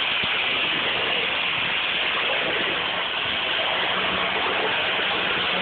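Steady whirring hiss of a FIRST Robotics competition robot's electric drive motors and gearboxes as it drives around, with a faint low hum coming in about four seconds in.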